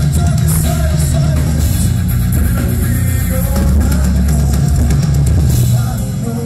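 Live hard rock band playing an instrumental passage: a pounding drum kit with bass drum, distorted electric guitars and bass guitar, loud and full of low end. Near the end the heaviest low end drops away and the level dips slightly.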